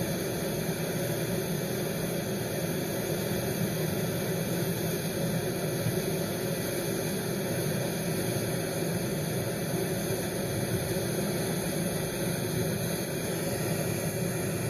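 Steady rushing noise of wind and sea water with a low engine hum underneath, unchanging throughout.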